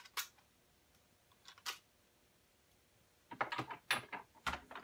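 Clicks and clinks of a Lee Auto-Prime hand priming tool and brass .308 cases being handled: a single click near the start, another about a second and a half in, then a quick run of clicks and clinks from about three seconds as a primed case is set into the plastic loading block.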